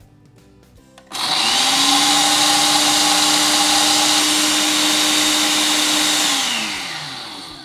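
Ninja Coffee & Spice Grinder attachment on a Ninja blender motor base grinding whole coffee beans. The motor starts suddenly about a second in, spins up quickly, runs loud and steady at full speed, then winds down with a falling pitch and fades near the end.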